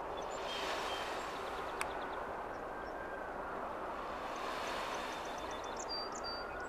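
Steady distant engine rumble, with a few faint high bird chirps about five to six seconds in.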